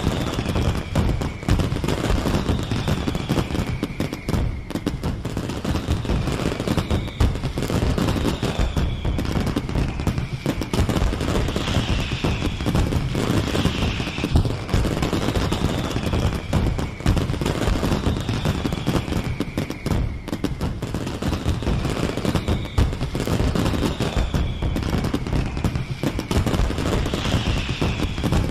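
Fireworks display: dense, continuous crackling bangs, with a falling whistle every second or two.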